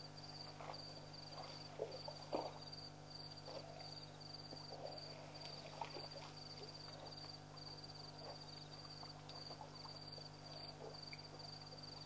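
Crickets chirping in a steady rapid pulsed trill, with scattered soft splashes and knocks from elephants drinking at the waterhole, the loudest about two seconds in, over a steady low hum.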